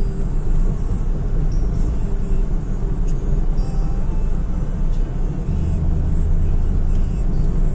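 Steady low rumble of a car's engine and tyres on a paved road, heard from inside the cabin while driving. A deeper hum swells for a second or so past the middle.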